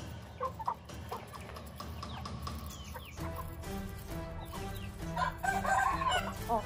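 Thai game chickens clucking with short calls as they peck at the ground, a busier run of clucks about six seconds in, over background music.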